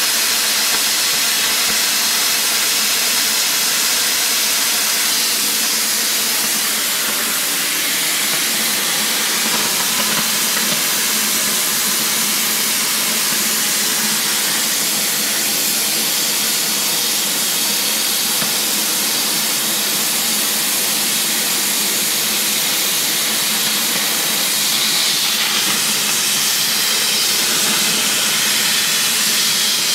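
Oxy-fuel cutting torch on a Victor DC2400 duplicator hissing steadily as its oxygen jet burns through 4-inch-thick metal plate.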